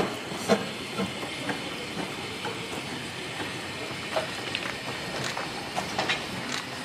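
Small narrow-gauge steam locomotive moving slowly: a steady hiss of steam under irregular clicks and clanks from its wheels, rail joints and couplings, roughly one or two a second.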